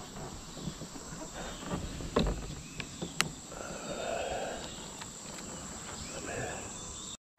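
Insects buzzing steadily at a high pitch, with a couple of sharp clicks about two and three seconds in; the sound cuts off abruptly just before the end.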